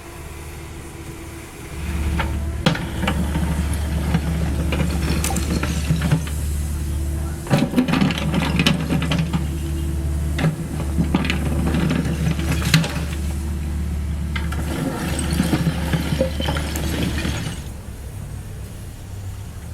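Caterpillar 305.5E2 mini excavator's diesel engine working under hydraulic load, with masonry rubble clattering, knocking and breaking against the bucket. The engine load rises about two seconds in and drops back near the end.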